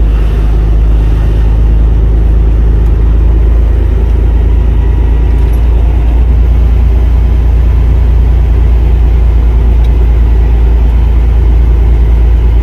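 Tractor-trailer's diesel engine and road noise heard from inside the cab while driving: a loud, steady low rumble.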